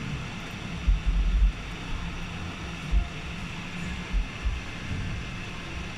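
Steady whir and hiss of a bench fan or blower, with a low hum, broken by a few dull low bumps about a second, three seconds and four seconds in.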